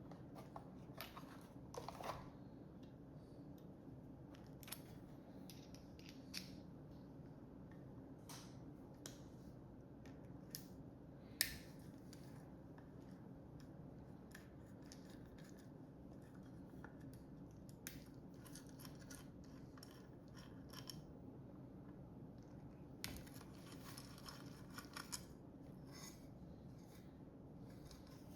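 Faint scattered clicks and scrapes of a hand tool and small metal parts being handled while a sewing machine speed controller is taken apart, with one sharper click about eleven seconds in and a run of scratchy clicks near the end. A low steady hum lies underneath.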